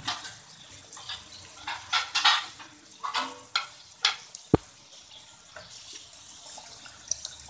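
Keema kachori deep-frying in hot oil in a karahi: a steady sizzle, with louder splashy surges of bubbling oil through the first four seconds as a slotted metal spoon works the kachori, and one sharp knock about four and a half seconds in.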